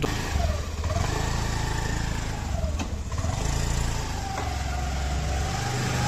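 A motor vehicle's engine running on the move, its pitch rising and falling as it speeds up and eases off, over a steady low rumble.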